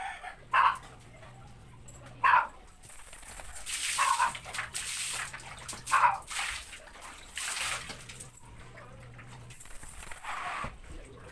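A dog barking in short, sharp barks, about six of them a second or two apart, while water is poured and splashed over it on a tiled floor during its bath.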